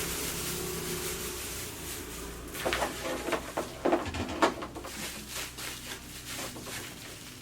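Unpacking a ring light: packaging and parts being handled, with rubbing and a cluster of sharp clicks and knocks in the middle, the loudest about four and a half seconds in.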